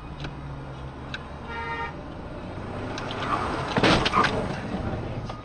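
Car road noise heard from inside the cabin. A short horn beep comes about a second and a half in, then a quick cluster of loud bangs a little before four seconds in.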